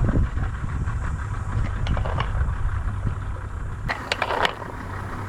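Boat's outboard motor idling with a steady low hum, with a short burst of sharp knocks about four seconds in.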